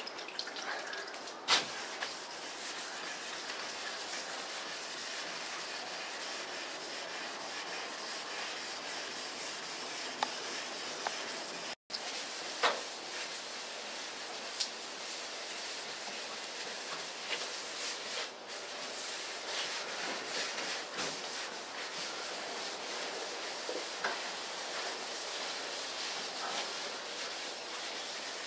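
Wet sanding by hand: sandpaper on a sanding block rubbing over the wet painted body panel of a 1993 Mustang GT, a steady scratchy hiss. The sound cuts out for an instant about twelve seconds in.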